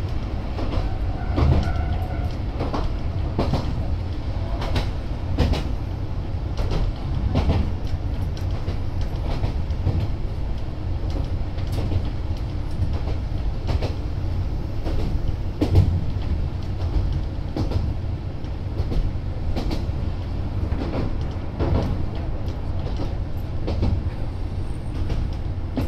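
Isumi 200-series diesel railbus running, heard from inside the car: a steady low diesel drone with wheels clacking over rail joints several times every few seconds.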